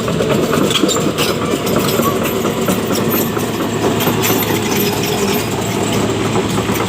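Excavator driving past, its engine running steadily under a fast, continuous clatter from its tracks.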